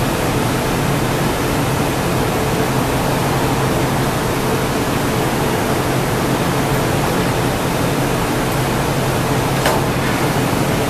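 Steady loud roar of a glassblowing studio's equipment, furnace or glory-hole burners and fans running, with a low hum. A single light click near the end.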